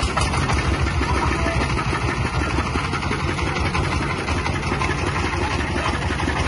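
Single-cylinder horizontal diesel engine of a mobile grain thresher running steadily, a rapid even chugging.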